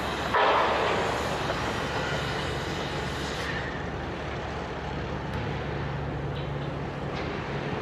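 Steady low machinery hum, with a loud hissing burst about half a second in that dies away over the next three seconds.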